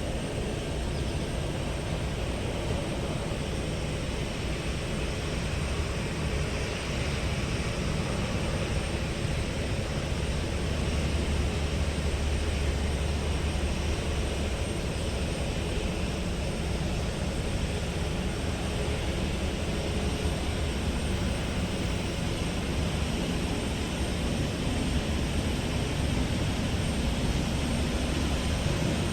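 Steady jet airliner engine noise across the airfield, a low rumble under a hiss, swelling slightly about a third of the way in.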